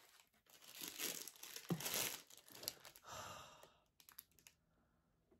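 Gift wrapping crinkling and tearing as a present is unwrapped by hand, busiest in the first three seconds, followed by a few light clicks.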